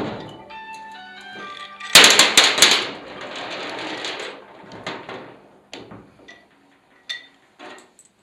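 Metal parts of an aluminium reduction gearbox being handled on a sheet-aluminium table. A burst of clinks and knocks comes about two seconds in, followed by a second or so of scraping, then scattered single taps and clicks.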